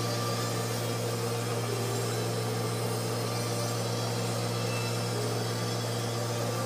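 A steady low mechanical hum that holds one pitch throughout, with no separate events.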